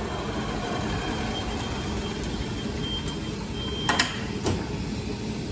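Cushman utility vehicle driving slowly past, its motor running steadily, with a couple of sharp clunks about four seconds in.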